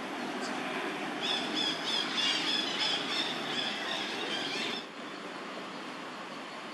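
A run of short, high-pitched animal calls, repeated many times over about three and a half seconds above a steady outdoor background hiss, stopping abruptly about five seconds in.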